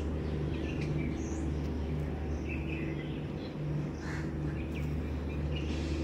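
Scattered short bird chirps over a steady low hum, the outdoor ambience of a park.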